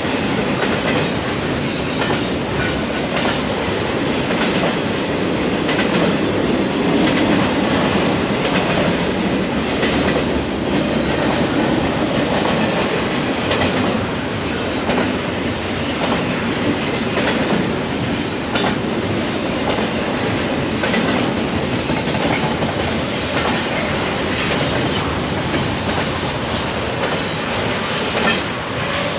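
Freight train rolling past: a steady loud rumble of steel wheels on rail, with frequent short clicks as the wheels cross rail joints.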